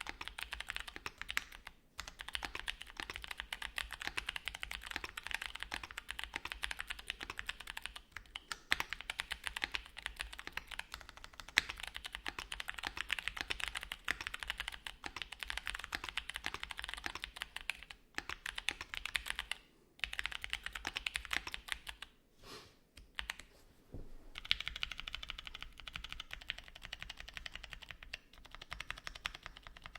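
Mechanical keyboard typed on quickly and continuously: a Luminkey x Bowl LX60 with Gateron Lanes switches on a polypropylene plate with plate foam, and GMK keycaps. The typing stops briefly about twenty seconds in and again a couple of seconds later.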